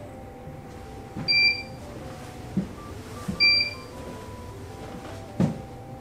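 Two short, high electronic beeps about two seconds apart, over soft background music, with a few dull footsteps on the floor.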